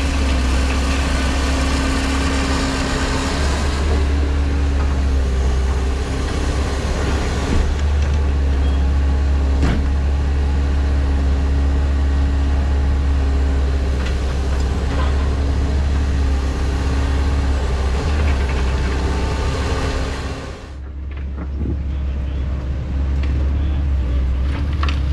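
A vehicle engine running steadily with a deep, continuous rumble and a faint steady hum. The sound changes abruptly about twenty seconds in.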